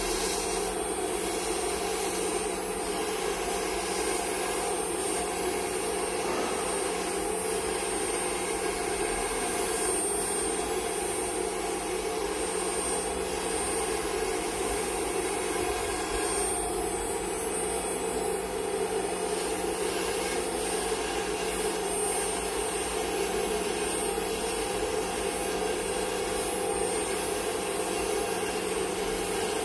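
Electric milling spindle on a KUKA KR210 robot arm running steadily as it cuts into a white block: an even, unbroken machine whir with a thin high whine over it.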